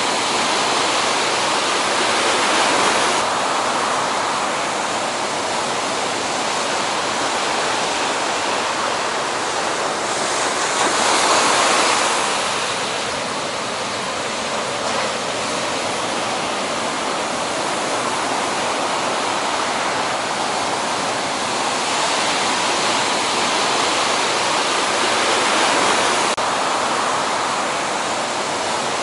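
Heavy ocean surf breaking and rushing as a continuous roar of whitewater that swells louder a few times, most strongly about midway through.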